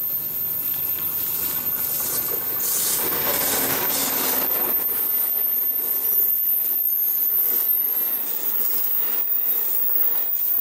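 An Amtrak passenger train, a P42DC diesel locomotive hauling Amtrak California bilevel cars, passing close by at speed. The locomotive's pass is loudest about three seconds in, then the cars follow with their wheels clicking on the rails.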